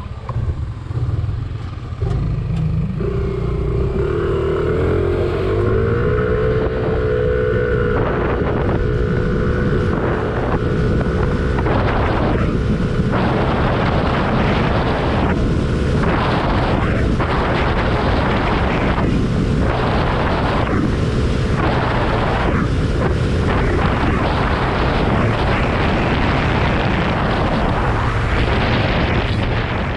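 Yamaha Aerox 155 scooter's single-cylinder engine pulling hard from a start, its CVT fitted with an RS8 V3 racing pulley set. The throttle opens about two seconds in, and the engine note climbs briefly and then holds steady while the CVT shifts up and the speed rises. Gusty wind noise on the microphone builds as the scooter gathers speed.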